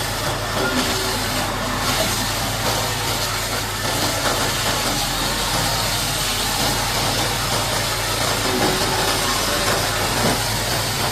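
A heavy engine idling steadily under the constant broad hiss of a high-pressure water jet spraying mud off a bulldozer.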